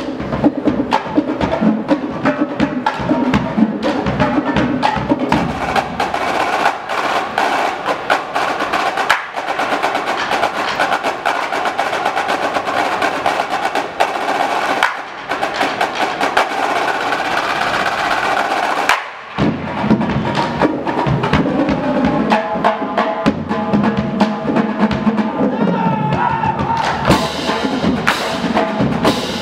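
A drumline playing a fast, dense percussion routine: rapid drum strokes and rolls mixed with sharp wood-block-like clicks. It breaks off for a moment near the two-thirds mark, then comes back in.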